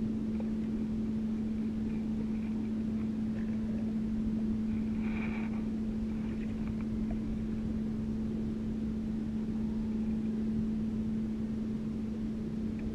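Small boat engine running steadily: a constant low hum with no change in speed.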